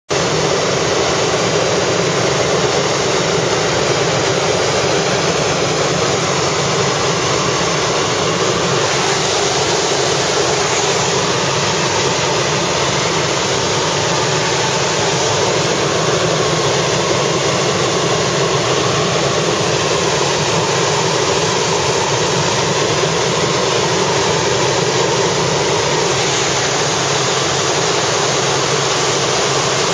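Helicopter turbine engine and rotor running, a loud, steady, unbroken noise with a faint low hum underneath.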